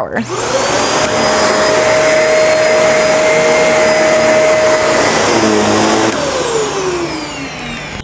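Shark NV352 upright vacuum switched on, its motor whine rising to a steady pitch within the first second, then running steadily as it sucks flour out of a carpet. About six seconds in it is switched off and the whine falls away as the motor spins down.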